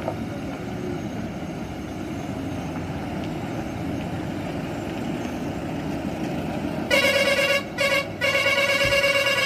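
A vehicle horn honks three times near the end, a blast, a short toot and a longer blast, with a bright, slightly warbling tone. Underneath runs the steady low drone of vehicle engines and tyres on the gravel road.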